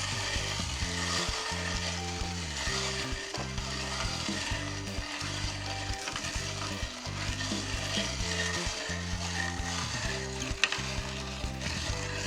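Meat grinder crushing dry breakfast cereal: a continuous crackling crunch, with one sharp click about ten and a half seconds in.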